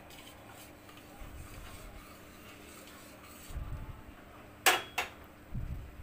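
Steel spatula clinking twice against the rim of a steel cooking pot, two sharp metallic knocks in quick succession near the end, amid a few low, dull handling bumps.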